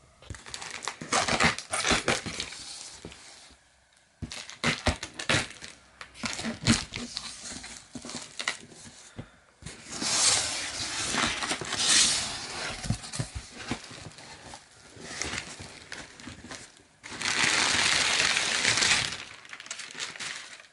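Cardboard shipping box opened by hand: a run of knocks and scrapes on the cardboard, with crinkling and rustling of packaging and two longer tearing stretches, one about halfway through and one near the end.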